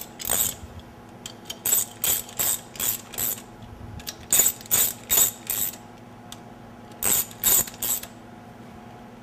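Hand ratchet clicking in quick back-and-forth strokes, in three spells with short pauses, as it runs down the bolts that fasten a crank trigger wheel to the harmonic balancer. The clicking stops about eight seconds in.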